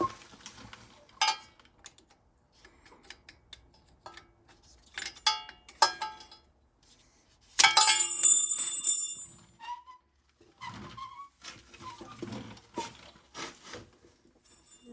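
Metal hand tools and parts clinking and knocking during work on the wheel hub assembly: scattered light clicks, a few ringing metallic clinks, the loudest and longest ringing about eight seconds in.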